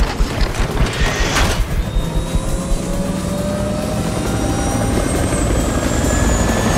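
Helicopter spooling up: the main rotor chops rapidly over a turbine whine that rises in pitch. A brief whoosh comes about a second in.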